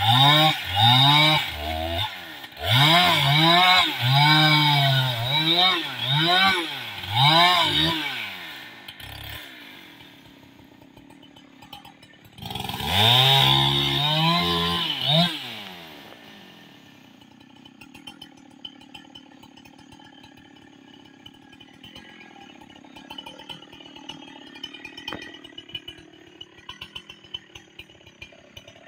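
Two-stroke chainsaw revving up and down about once a second as it cuts into a tree's roots at the base. A second run of revs follows a short pause, and then the saw drops to a much quieter low sound.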